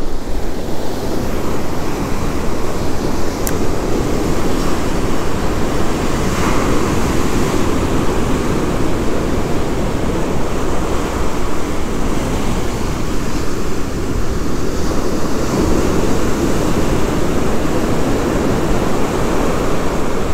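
Rough, heavy surf breaking and washing up the sand in a steady, loud wash of sound, with wind buffeting the microphone.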